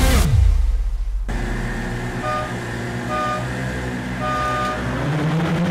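A falling whoosh ends the intro music, then racing boats' outboard motors run steadily while a start signal beeps three times, two short and one longer; near the end the engines rise in pitch as the boats set off.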